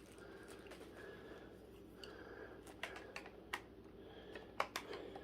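Light handling of plastic stick-vacuum parts: soft rustling with a few sharp little clicks and taps, mostly in the second half.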